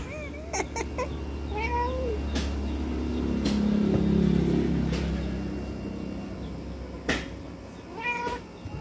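Pet cats meowing in short, pitch-bending calls, excited by a lizard they are watching, with a drawn-out low call around the middle. A few sharp knocks are scattered through.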